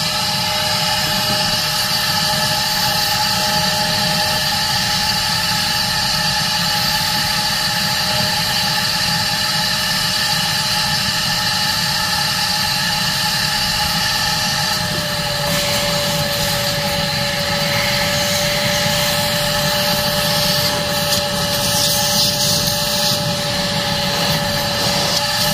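Shop vac running steadily with a small detail nozzle, sucking debris out of a car's sunroof tracks. Its motor whine drops slightly in pitch a little over halfway through, and the airy hiss grows brighter near the end.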